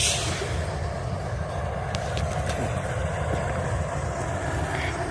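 A steady low engine rumble of an idling vehicle, with a short hiss right at the start.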